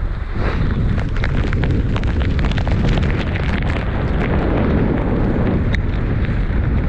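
Strong wind buffeting the microphone in a snowstorm, a loud steady rumble, with scattered small clicks and taps.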